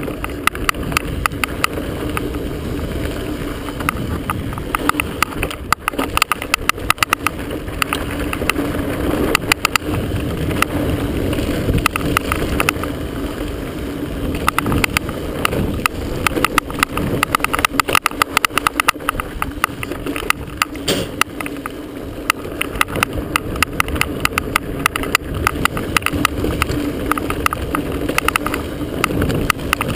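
Chest-mounted camera rattling and knocking against its mount in rapid, irregular clicks as a mountain bike descends a rocky dirt singletrack, over a steady rushing of wind and tyres on dirt.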